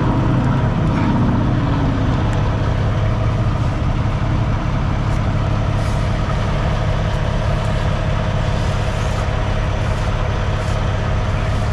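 Semi-truck diesel engine idling, a steady deep drone with an even hum.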